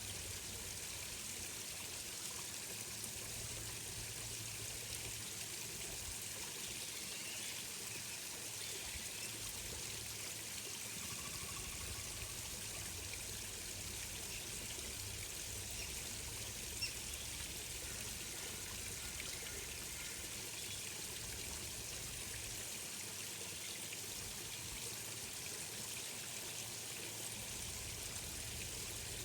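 Steady pouring and trickling of flowing water, like a small stream, with a single brief click about two-thirds of the way through.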